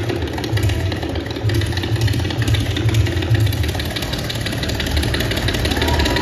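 Tabla played fast in a rela, the bass drum giving a dense, rolling low rumble of rapid strokes that imitates a steam train and the rhythm of its coaches. Near the end a higher tone slides upward over the drumming.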